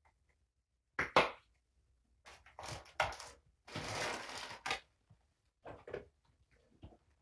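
Two sharp clicks of small items being handled, then crinkling and rustling of a plastic bag being rummaged through for about a second.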